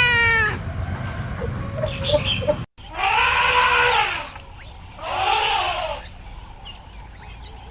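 The tail of a cat's meow, then after a cut two drawn-out duck quacks, each about a second long and about two seconds apart.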